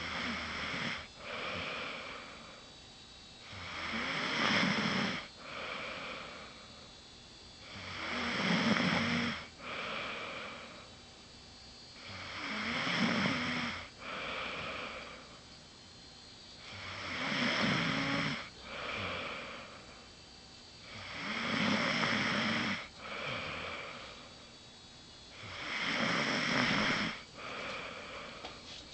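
A woman snoring loudly and rhythmically, with a long rattling snore on each in-breath followed by a shorter, softer out-breath, repeating about every four and a half seconds.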